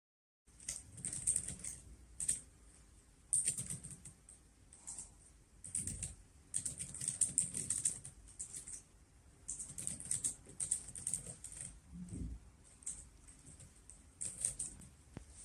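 Typing on a laptop keyboard: quick runs of key clicks in irregular bursts with short pauses between them. There are two soft, low thumps, one just before the middle and one near the end.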